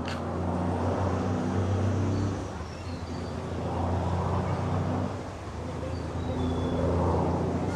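Motor vehicle engine running with a steady low hum, its sound swelling and fading three times.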